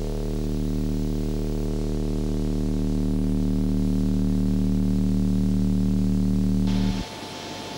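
Low, sustained synthesizer drone with a dense, buzzy stack of overtones, swelling slightly as a suspense score. It cuts off abruptly about seven seconds in, leaving a quieter steady hiss with a faint high tone.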